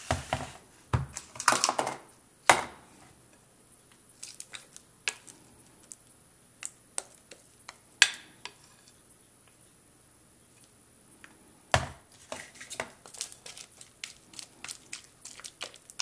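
Plastic spoon scraping and scooping clear glue slime out of a glass bowl into a plastic tub: irregular clicks, knocks and sticky crackles, with a few louder knocks in the first few seconds and again a little before twelve seconds in.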